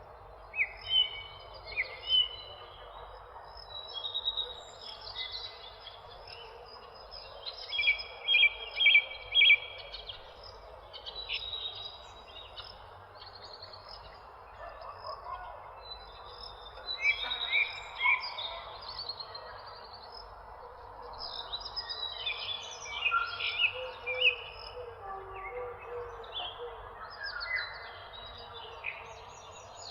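Several birds chirping and singing in quick, overlapping phrases, busiest in two spells with a quieter stretch in between, over a steady background hiss.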